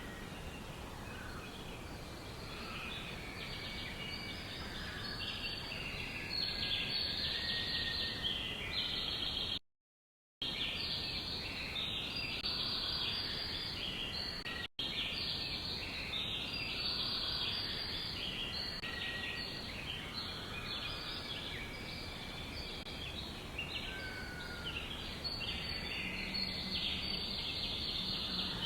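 Many songbirds chirping at once in a dense, unbroken chorus of high, quick calls over a soft background hiss. The sound cuts out completely for under a second about ten seconds in, and for an instant at about fifteen seconds.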